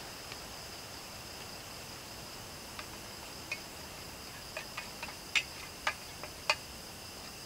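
Steady chorus of crickets chirping. Over it, from about three seconds in, a scattering of light clinks of a small cooking pot and utensil against a plate as cooked noodles are lifted out, the three loudest clinks close together near the end.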